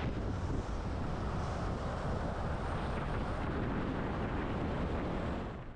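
Steady rush of wind and tyre-on-road noise picked up by a camera on the outside of a moving car, fading away just before the end.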